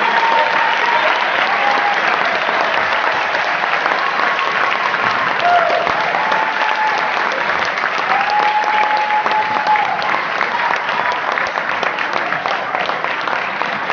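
Crowd applauding steadily, with a few long cheering voices held over the clapping.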